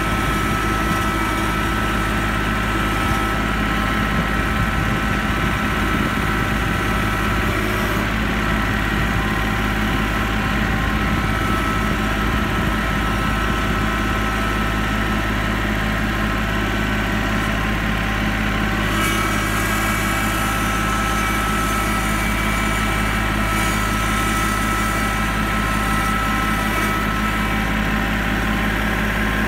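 Kubota L3901 tractor's three-cylinder diesel engine running steadily, heard from the operator's seat as the tractor carries pallets on its loader forks.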